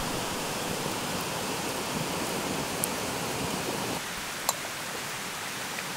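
Split-log campfire burning under a cooking pot: a steady hiss with a few sharp crackles, one louder pop about four and a half seconds in. The hiss drops a little about four seconds in.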